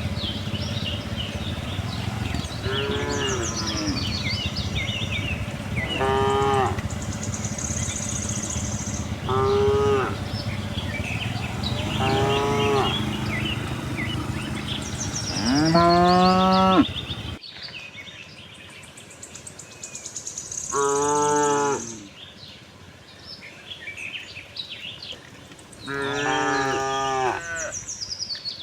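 Cattle mooing: about seven separate moos of a second or so each, the loudest and deepest one just before halfway through. A steady background rumble cuts out suddenly right after that loud moo.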